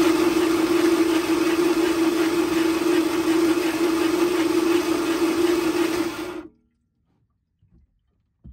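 Boat outboard motor being cranked over by its electric starter, a steady whine that runs for about six seconds and then stops abruptly without the engine catching. The owner suspects a blown head gasket, with water being pumped out of the cylinder.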